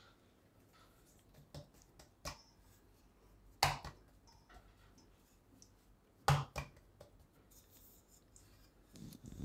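Soft kulcha dough being pressed and patted by hand on a floured wooden rolling board, quiet apart from a few sharp knocks and clicks, the two loudest about three and a half and six seconds in. Light rubbing and knocking starts near the end as a wooden rolling pin is taken up.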